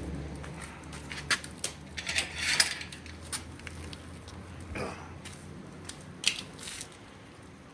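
Scattered metallic clinks, taps and clatter of hand tools and hardware being handled, with a busier stretch of scraping rattle about two to three seconds in, over a low steady hum.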